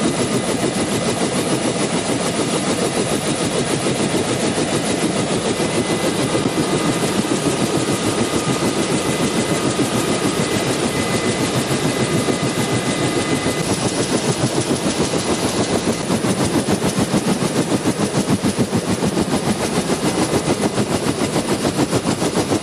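UH-1 Huey helicopter's two-bladed main rotor beating in a rapid, even chop, with a steady whine above it that fades out about two-thirds of the way through. The blade beat grows stronger and more distinct over the last several seconds.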